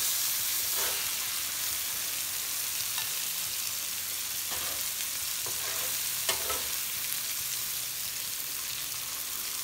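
Köfte wrapped in caul fat, with tomatoes and green peppers, sizzling steadily on a hot flat griddle plate over a gas burner. A few short clicks of metal utensils sound over it as vegetables are lifted off.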